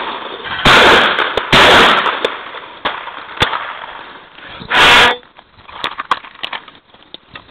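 Shotgun fired twice, about a second apart, each blast trailing off briefly. About five seconds in there is a third loud bang, followed by scattered small clicks.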